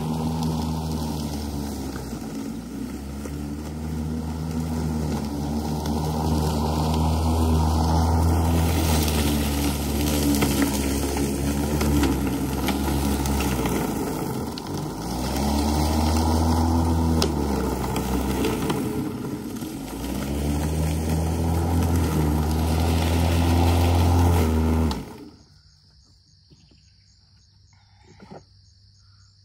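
Makita 36-volt (18V X2) cordless self-propelled lawn mower running, its electric motor and blade making a steady whir whose pitch sags briefly twice and recovers. It cuts off abruptly near the end.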